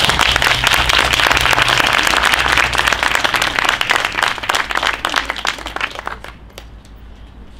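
Audience applauding, dense at first, then dying away to a few scattered claps about six seconds in.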